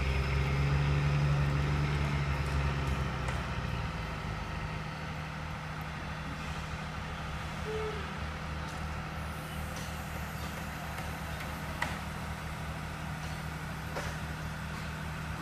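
Mobile crane's diesel engine running steadily under load while it holds a modular home section on its slings. About four seconds in it drops a little and runs on evenly, with two light clicks in the second half.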